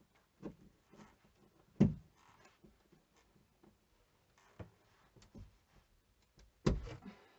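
Irregular knocks, clicks and short scrapes of a hole punch and needle-nose pliers working at wooden wall panelling to prise it away. Two sharper knocks stand out, about two seconds in and near the end.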